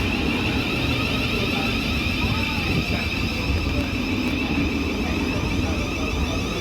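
Electric passenger train running through the station: a steady low rumble with a constant high whine over it.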